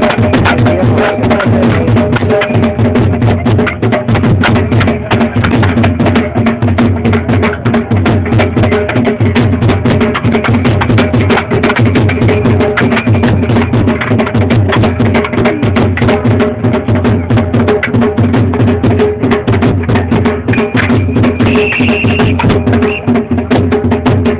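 Rapid, continuous drumming on a drum slung at a player's waist, beating out the rhythm for a gatka stick-fighting display.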